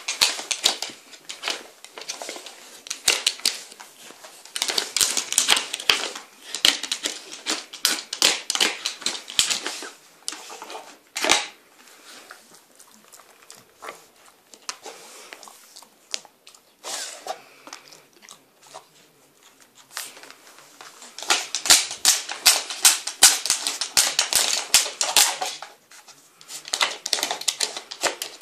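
Plastic blocks on a Nina Ottosson wooden dog puzzle board clattering and clacking as a dog noses and paws them along their grooves, in rapid runs of clicks with quieter spells around the middle and a single sharper knock a little before that.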